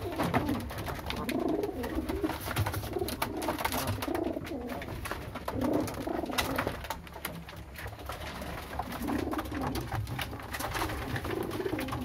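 Domestic pigeons cooing, several low coos repeating every second or two, with scattered light clicks.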